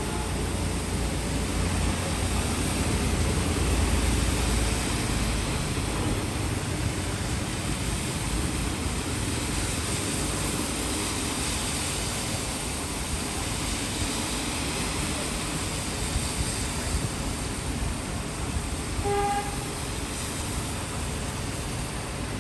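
Steady city rain, a continuous hiss, with a low rumble of passing traffic for the first few seconds and a short horn toot about three-quarters of the way through.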